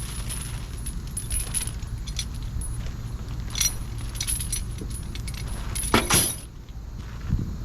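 Metal load-securement gear, such as tie-down chains and binders, clinking and jangling as it is handled and stowed, with a louder clank about six seconds in. A steady low engine rumble runs underneath.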